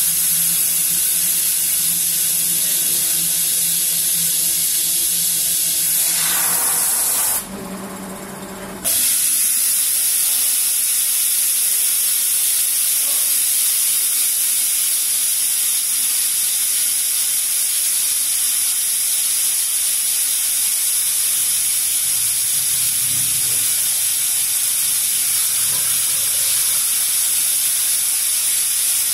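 CNC router running, a steady high-pitched hiss of the spindle and cutting. A lower steady hum stops about six seconds in, and the sound drops briefly between about seven and nine seconds before the hiss resumes.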